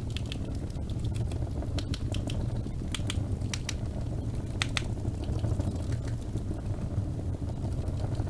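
Wood fire burning in a fireplace: a steady low rumble of the flames with scattered sharp crackles and pops, clustered around the middle.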